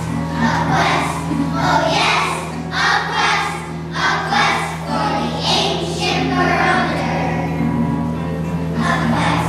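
A group of children singing together in chorus, over a steady low hum.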